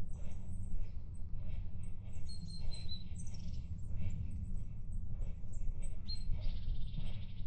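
Footsteps walking along a woodland track, about two a second, over a steady low rumble. Short high bird calls come twice, about two to three seconds in and again near the end.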